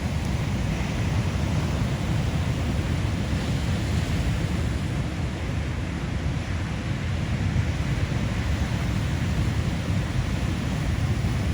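Steady roar of heavy ocean surf, mixed with wind buffeting the microphone as a low rumble.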